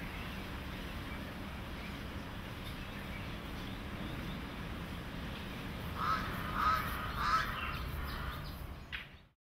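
Steady low outdoor background rumble, with a bird calling three times in quick succession about six seconds in. The sound then fades out abruptly near the end.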